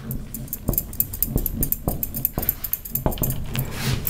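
Marker pen writing on a whiteboard: a run of short, quick strokes about every half second.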